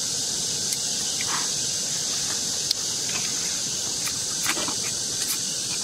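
A few short slurping sucks as snail meat is sucked out of the shells by mouth, over a steady high-pitched hiss.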